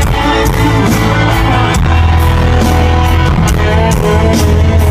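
Live country-rock band playing an instrumental passage between sung lines, loud and steady, with guitar over a heavy bass line and regular drum and cymbal hits.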